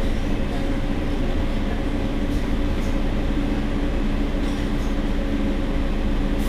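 Mercedes-Benz Citaro city bus engine idling steadily, an even low hum with a constant tone.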